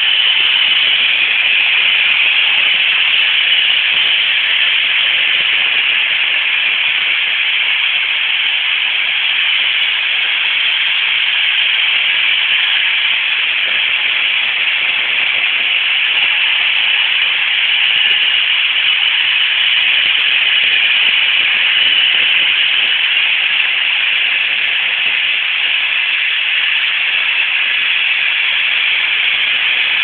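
Roomba robot vacuums running: the steady hiss of their vacuum motors and brushes, with no change in level.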